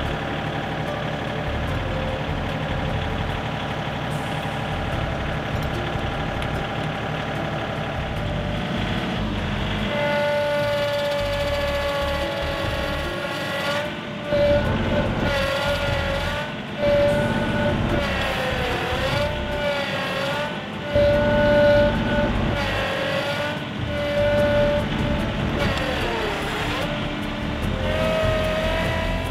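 John Deere compact tractor's engine running, then straining as it pulls on a chained tree stump: a high whine sets in about a third of the way through and dips in pitch and recovers several times under the load.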